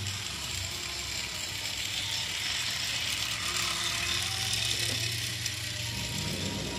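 Toy train's small motor and gears whirring steadily as it runs around its plastic track.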